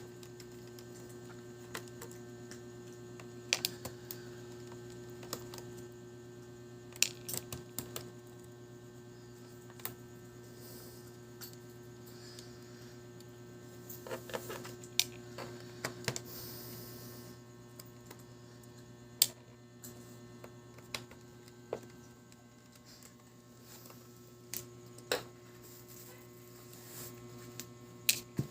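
Steady electrical mains hum under scattered sharp clicks and taps of small plastic and metal parts being handled while a Dell Latitude 3150 netbook is opened to remove its hard drive.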